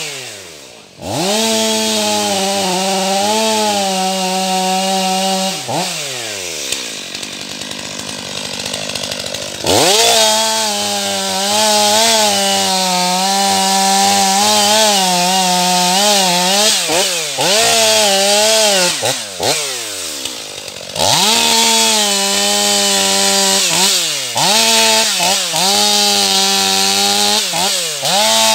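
Stihl MS 500i fuel-injected two-stroke chainsaw cutting larch at full throttle, its pitch wavering under load. It drops off the throttle a few times: briefly just after the start, for a few seconds at a lower idle about a quarter of the way in, and in several quick dips later on.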